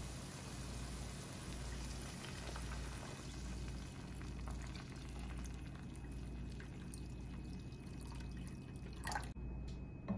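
Water poured steadily from a plastic jug into a pan of browned ground meat and vegetables, splashing as the pan fills. A short knock comes about nine seconds in.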